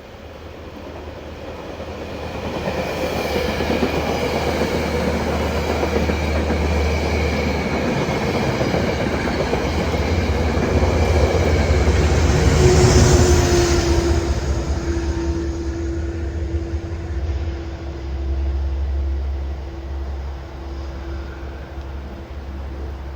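Metro-North passenger train with a GE P32AC-DM locomotive passing, with rail clatter. The sound builds over the first few seconds, is loudest about halfway through, then fades. A steady tone lingers through the second half.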